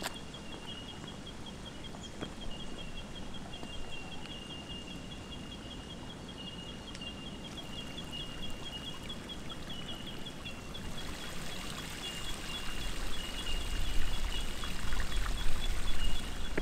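Bush ambience: a high, rapid, evenly pulsing call, a few pulses a second, repeats steadily throughout, and about two-thirds in the sound of trickling running water builds up and grows louder.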